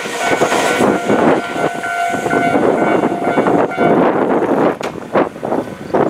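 Electric train running past on the tracks, a loud rumble with a steady high tone held for a few seconds. Near the end the rumble drops and sharp clacks of the wheels can be heard.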